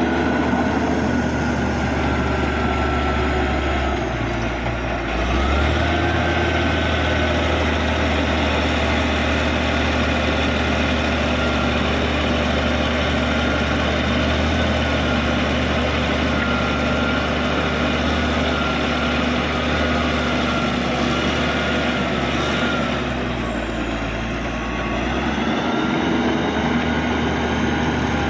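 Caterpillar D6G bulldozer's diesel engine running steadily, with a thin, wavering high whine over it. The engine note sags briefly about four seconds in and again near the end, then picks back up.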